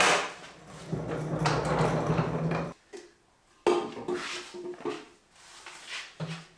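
Caster wheels of a wooden rolling stand rumbling across a concrete floor for a couple of seconds after an opening clunk. About a second later come several wooden knocks and clunks as the stand's fold-down side-table frame is lifted into place.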